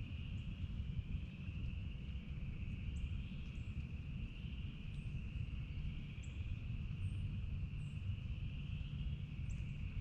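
Outdoor lakeshore ambience: a steady high-pitched chorus of calling animals, over a low rumble of wind on the microphone, with a few faint short bird chirps scattered through.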